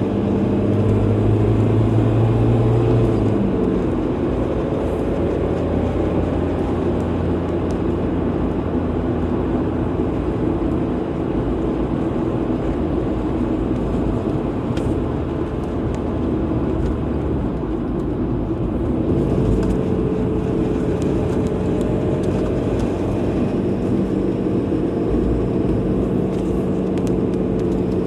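A car driving on the road: steady tyre and road noise with the engine's hum underneath. The engine note changes about three seconds in and again a little past the middle.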